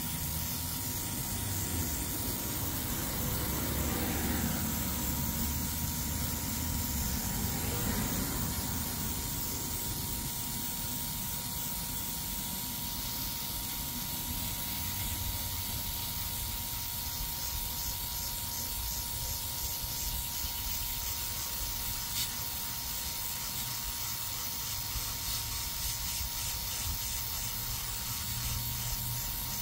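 Handheld cordless airbrush with a built-in mini compressor spraying in a steady hiss while light misting coats go back and forth, with a thin steady whine underneath. A low rumble swells and fades between about four and eight seconds in.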